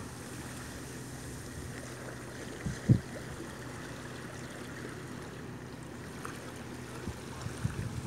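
Small waves lapping on a pebble and rock shore, a steady soft wash, with one short low thump about three seconds in and a few softer bumps near the end.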